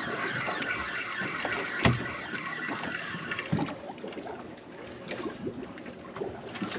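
Fishing reels being cranked as fish are reeled up from the bottom, over a steady hiss of wind and sea that eases partway through, with one sharp knock about two seconds in.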